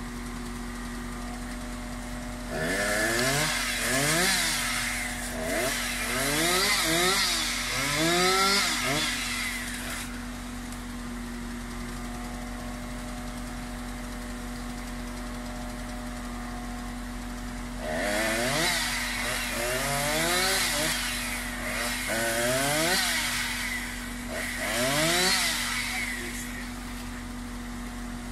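Chainsaw revved up and down in short bursts, about four rises and falls in each of two spells, the first a few seconds in and the second in the latter half, over a steady hum.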